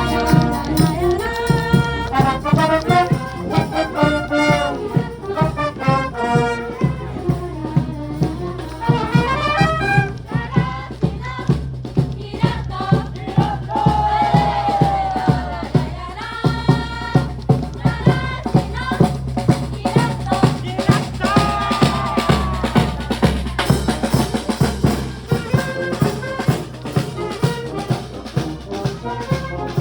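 High school marching band playing: brass melody with trumpets and trombones over a steady drum beat.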